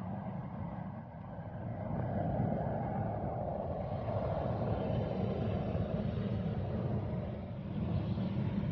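Tu-144 supersonic airliner's jet engines, a steady rushing roar as it takes off and climbs steeply. It grows louder about two seconds in.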